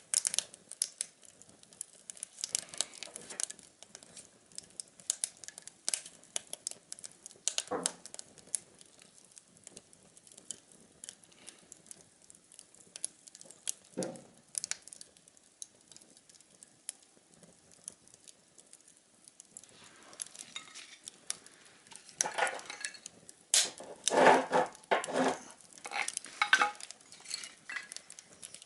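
Irregular clinks, taps and crinkling from a small tin-can stove being handled, with a run of louder metal knocks near the end.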